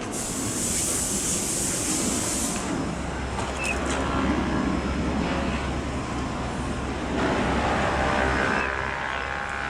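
Body shop background noise: a steady low machine hum that comes in about three seconds in, with a high hiss over the first couple of seconds.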